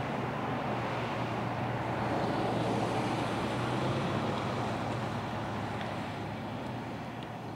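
A motor vehicle driving past: a steady rush of engine and tyre noise that grows loudest around the middle and fades toward the end, with some wind on the microphone.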